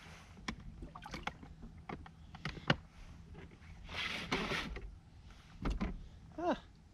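Small scattered clicks and knocks of fishing tackle being handled at a spinning reel, over water lapping against an inflatable boat and a low wind rumble. A short rush of noise comes about four seconds in, and a brief voiced sound near the end.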